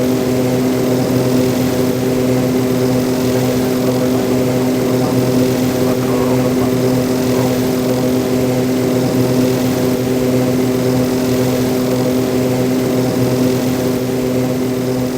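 ATR-72 turboprop engines and propellers droning steadily in flight: a constant low hum made of several steady tones over a broad rushing hiss. It cuts off suddenly at the very end.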